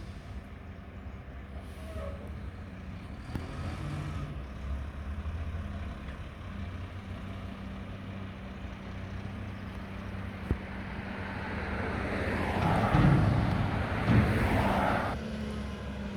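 Mack garbage truck's diesel engine running steadily. Near the end a louder rushing noise builds for a few seconds, with a sharp knock at its peak, then stops abruptly.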